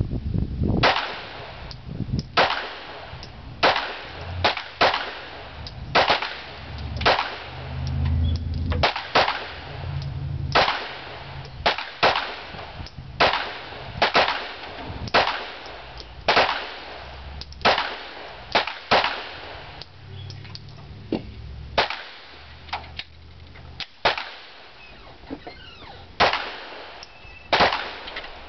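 Glock 19 9mm pistol firing a long string of shots at a steady pace, about one every half second to a second, each crack followed by a short ring-out; some shots are fainter than others.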